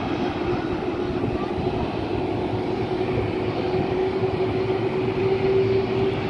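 Steady jet noise from a Boeing 737-400 freighter during pushback, with a steady whine that grows slightly louder near the end.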